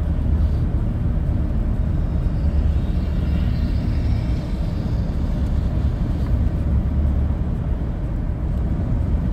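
Car driving along a city road, heard from inside the cabin: a steady low rumble of engine and tyre noise.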